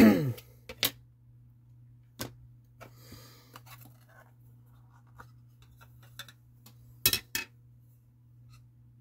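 Hard plastic clicks and light rustling from a magnetic One Touch card holder being handled and opened, with sharp clicks about a second in, a little after two seconds, and a close pair near the end.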